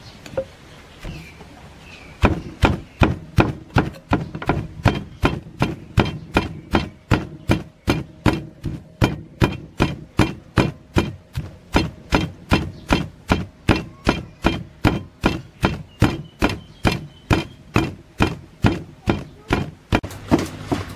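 Long wooden pestle pounding sliced lemongrass and garlic in a stone mortar: a steady run of dull thuds at about three strokes a second, starting about two seconds in.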